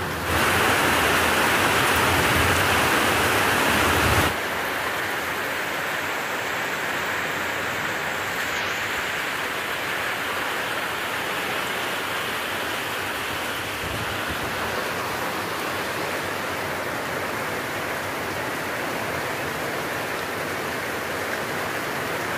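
Heavy rain pouring down steadily as an even hiss. It is louder for about the first four seconds, then drops suddenly to a slightly lower, steady level.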